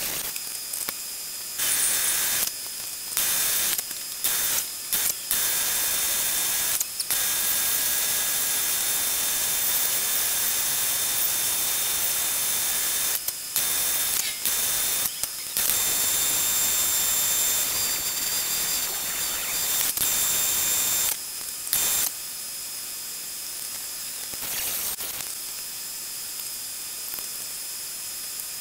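Angle grinder cutting a steel bar held in a metal lathe's chuck: a steady, high, hissing grind with a thin motor whine. It is broken every second or two by abrupt cuts into other stretches of machining noise.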